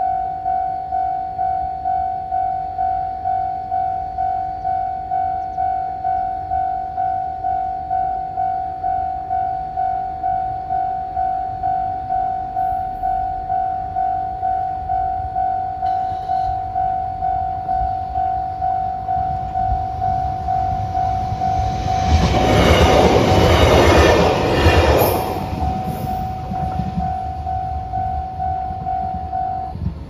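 Japanese level-crossing warning bell ringing in an even, steady ding rhythm while a train passes over the crossing about two-thirds of the way through, its wheels and running gear loud for a few seconds before fading. The bell stops just before the end as the crossing clears.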